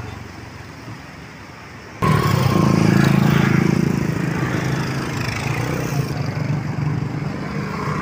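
Traffic noise, then from about two seconds in a motor vehicle engine running close by, a steady low hum that is loudest for the next couple of seconds and then holds on a little quieter.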